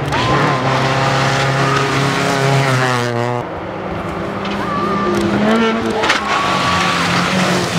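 Rally cars at speed on a gravel stage. One car's engine climbs in pitch under hard acceleration, then falls away abruptly about three and a half seconds in. From about five seconds in, the next car's engine rises as it comes in.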